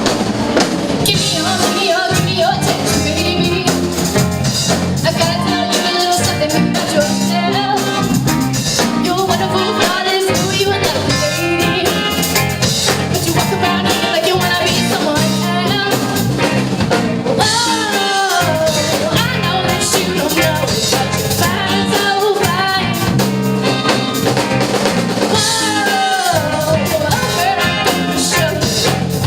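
Live rock band playing loudly, with a drum kit keeping a steady beat and a singing voice over it.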